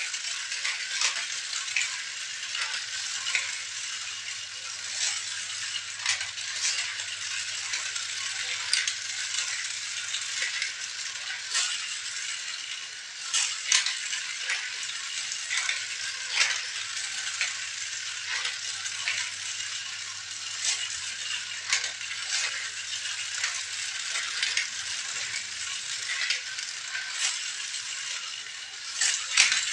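Continuous rustling and rattling of small toys being handled, with many small sharp clicks and a few louder knocks.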